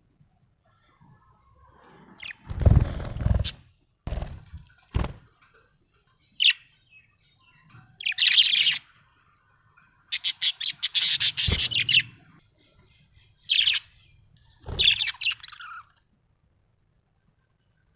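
Budgerigar chirping and chattering in short, scattered bursts, with a few low thumps, the loudest about three seconds in.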